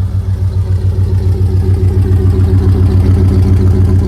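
Ford F-150's exhaust, straight-piped with long-tube headers, idling with a loud, steady, evenly pulsing rumble.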